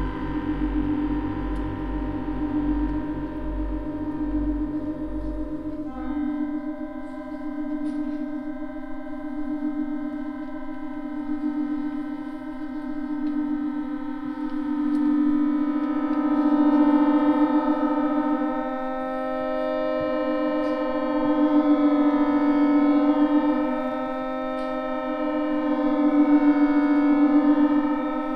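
Chromatic button accordion holding sustained, droning chords. A low pulsing bass stops about six seconds in, leaving a dense held chord that swells louder three times toward the end.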